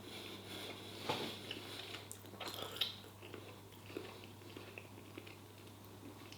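A man biting into and chewing piri piri chicken, with faint, irregular mouth sounds and small clicks.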